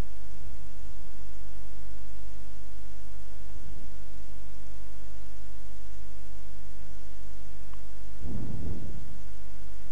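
Steady electrical mains hum from the recording line, a buzz made of many evenly spaced tones that holds unchanged. A brief low rumbling burst comes through about eight seconds in.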